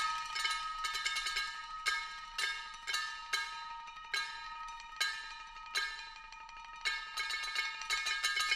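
Percussion quartet playing small metal percussion: irregularly spaced strokes, each ringing out, over two steady high tones held underneath.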